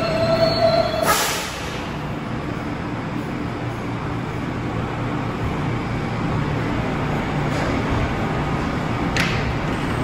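New York City R160 subway train coming to a stop: a last thin brake squeal ends about a second in, followed at once by a sharp hiss of air from the brakes. The standing train then hums steadily, and a second, shorter air hiss comes near the end.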